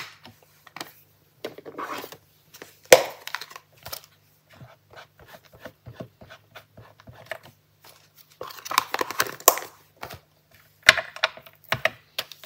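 Cardstock and paper rustling as crafting supplies are handled and set down on a table, with scattered light clicks and one sharp knock about three seconds in.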